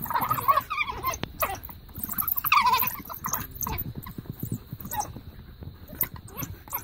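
African wild dogs giving high-pitched twittering, whining calls in two main bursts, at the start and about two and a half seconds in, with scattered short clicks and scuffles between them as the pack squabbles at close range.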